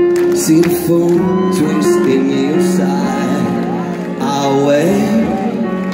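Live band music played over a concert PA, with a singer's voice riding over the band.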